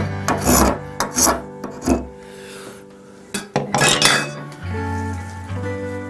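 Hand rasp or file strokes, about three in the first two seconds, then a few sharp metallic clinks, over background music.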